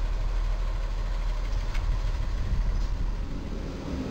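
Steady low rumble of road traffic at a street underpass.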